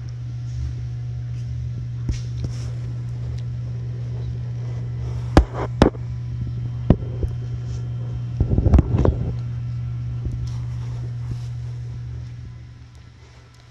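Escalator machinery running with a steady low hum that fades away near the end. A few sharp metal clanks come about five to seven seconds in, and a short rattling clatter around nine seconds in.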